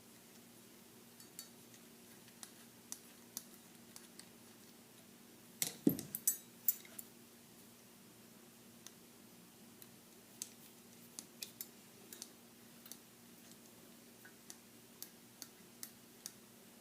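Small metal clicks and taps of a screwdriver and steel pistol parts being worked by hand, scattered throughout. About six seconds in there is a brief cluster of louder clinks with a dull thump.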